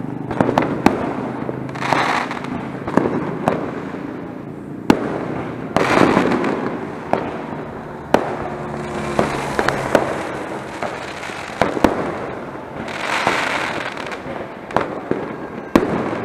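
Fireworks and firecrackers going off: scattered sharp bangs and pops, with several stretches of hissing crackle about a second long.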